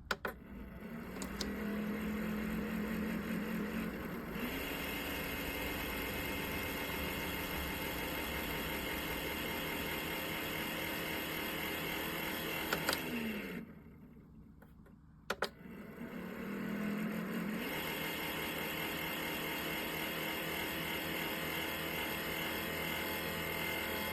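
A small electric motor whirring steadily, rising in pitch a few seconds in. A couple of clicks come near the middle, then it winds down and stops. It starts up again about two seconds later, rises again and runs on.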